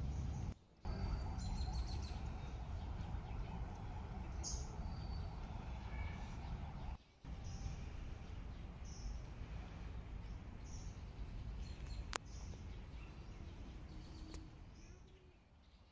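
Outdoor park ambience: a steady low background rumble with birds giving short, high chirps every second or two. It drops out briefly twice, there is a single sharp click about twelve seconds in, and the sound fades away near the end.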